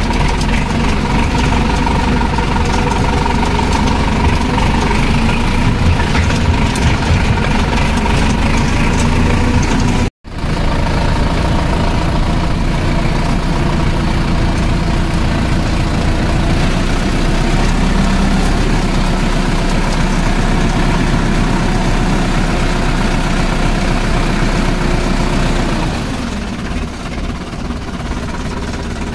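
Diesel tractor engine running steadily. The sound cuts out for a moment about a third of the way in, and the engine is quieter for the last few seconds.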